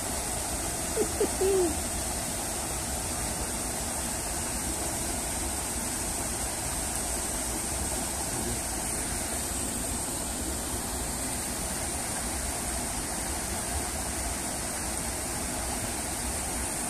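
Small stream and a little waterfall running, a steady rush of water. About a second in there is one short low tone.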